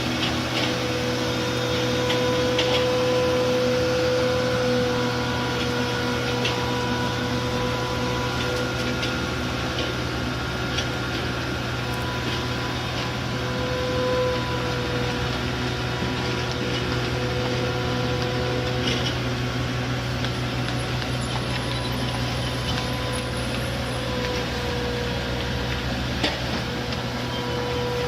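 Steady machine hum with a held high whine and a few faint clicks.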